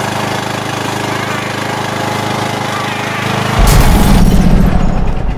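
Riding lawn mower engine running steadily. About three and a half seconds in, a sudden, much louder crash-like blast with a deep rumble drowns it out.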